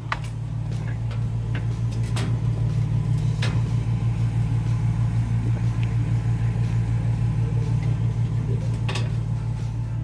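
Reach-in beer cooler's refrigeration unit running close to the microphone: a steady low hum with a fast flutter. A few light clicks are heard along the way.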